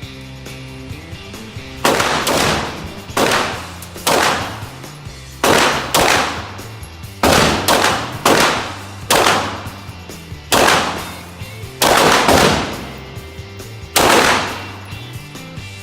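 A Beretta M9A3 9mm pistol fired in a slow, steady string, about fourteen shots roughly a second apart, each shot loud and sharp with a ringing tail. Background music plays under the shots.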